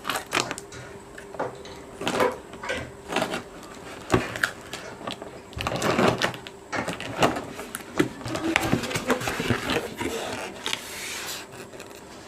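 Cardboard speaker box being opened and its contents handled by hand: irregular knocks and clicks with scraping and rustling of cardboard and packaging.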